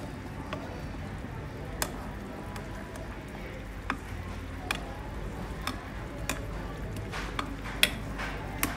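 Metal ladle clinking against the rim and sides of a stainless steel soup pot while skimming foam from the broth. About nine sharp clinks come at uneven intervals, the loudest near the end, over a steady low background.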